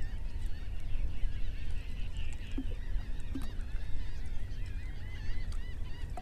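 A flock of birds calling repeatedly in short wavy calls, over a steady low wind rumble on the microphone, with a few faint clicks.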